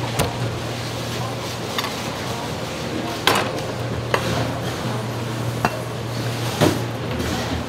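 A knife and cleaver knocking on a cutting board while salmon is cut, a handful of sharp irregular knocks about a second apart, over a steady low hum.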